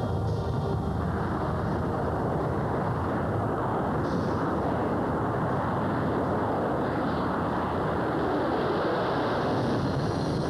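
Lockheed SR-71 Blackbird's twin Pratt & Whitney J58 jet engines on takeoff and climb-out: steady, loud jet noise. Music fades out in about the first second.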